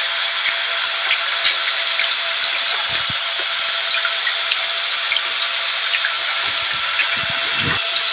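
Steady rain mixed with a vacuum cleaner's motor: an even hiss carrying a few constant whining tones and scattered small ticks. There are a few soft low thuds about three seconds in and again near the end.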